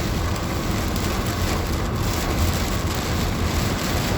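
Heavy hurricane rain pouring on a car, heard from inside the cabin, over the steady low rumble of the car on a wet road.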